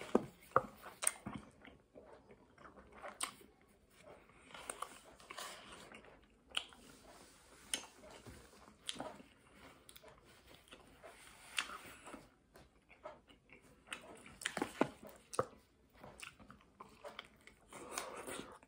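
Close-up chewing and biting of a chipotle cheddar chicken wrap: irregular soft mouth clicks and smacks as the tortilla and filling are chewed.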